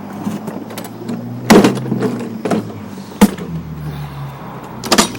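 Pull-cord recoil starter of a Husqvarna LC221A mower being yanked, with three loud clunks about a second and a half apart as the pulls fail to turn the engine over. The recoil starter housing is busted, so the rope has nothing to grab onto.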